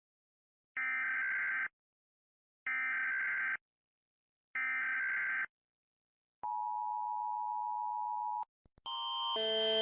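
Emergency Alert System broadcast alert: three buzzy one-second bursts of SAME header data tones about a second apart, then the two-tone attention signal for about two seconds, which cuts off. Just before the end a louder alarm with several tones switching back and forth starts.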